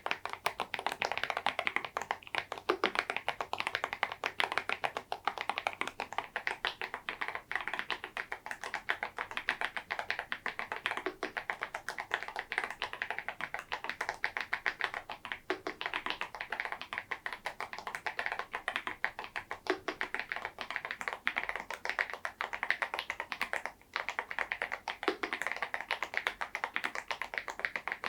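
Continuous typing on an EPOMAKER Dynatab 75X mechanical keyboard with lubed KTT Macaron Blue tactile switches and KEYTOK KDA Y2K keycaps: a dense, steady run of keystroke clacks with a deeper stroke every few seconds.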